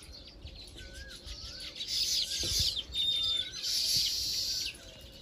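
Baya weaver colony chattering: dense high chirping that swells about two seconds in and drops away near the end, with a softer wavering note repeated now and then underneath.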